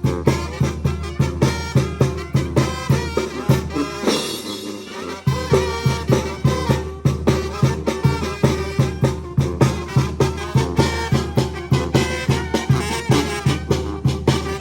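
Oaxacan brass band playing a lively tune over a steady bass-and-drum beat; about four seconds in the low beat drops out for roughly a second, then comes back in.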